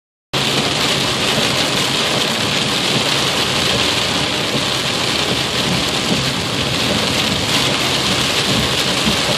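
Heavy rain beating on a car's windshield and roof, heard from inside the moving car as a loud, steady, dense hiss.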